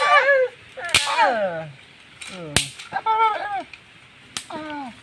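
A man's short vocal exclamations, several of them sliding down in pitch, with three sharp clicks about a second and a half apart.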